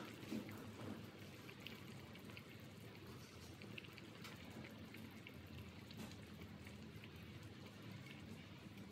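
Pot of sweet potato chunks at a boil: faint bubbling with scattered small pops and ticks.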